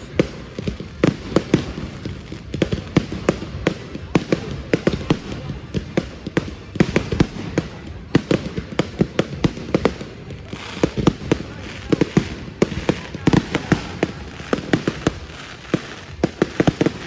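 Fireworks going off: a rapid, continuous string of sharp bangs and crackles, several a second.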